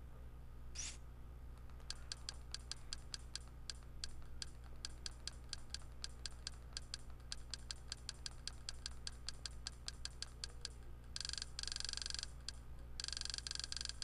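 Quiet interface navigation clicks from a Kodi media-player menu: a short tick for each step as a list is scrolled, several a second. About 11 and 13 seconds in, the ticks run together into a continuous stream as the list scrolls fast.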